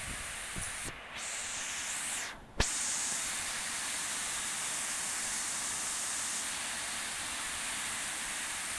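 Heavy rain falling, a steady hiss that drops out briefly with a single click a little over two seconds in.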